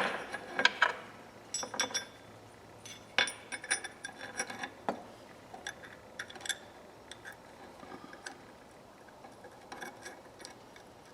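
Small metal tool parts being handled and fitted together by hand: a run of light clicks and clinks, busiest in the first five seconds, then only a few scattered ones.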